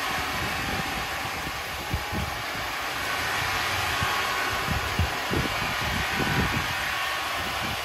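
Woodworking machinery running steadily with a hissing whir, with a few scattered low knocks.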